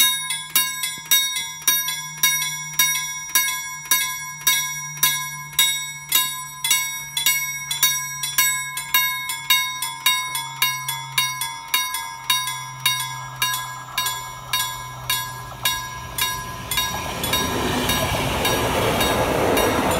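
Level-crossing warning bells (KLD-43) ringing steadily at about two strikes a second. A passenger train comes through the crossing from about three-quarters of the way in, adding a rising rush of wheel and rail noise under the bells.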